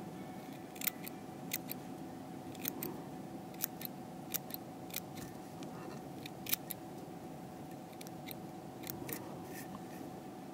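Curved fly-tying scissors snipping, with short sharp cuts at an irregular pace, about one to two a second, as they trim stray fibres from the fly's body to a taper.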